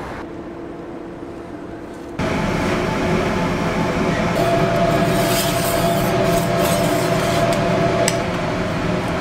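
Quiet street background, then about two seconds in a sudden change to loud, steady kitchen noise: gas burners and fans running under a cast-iron martabak pan, with a few sharp metal clinks from the spatula.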